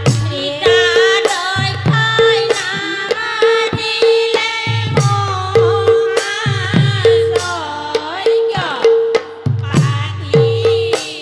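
A group of women singing a devotional song together to a hand-played barrel drum. The drum gives a ringing higher tone and deep strokes that drop in pitch, set in a steady rhythm, with hand claps on the beat.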